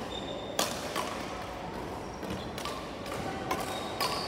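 Badminton rally: several sharp hits of rackets on a shuttlecock, with brief high squeaks of shoes on the wooden court floor.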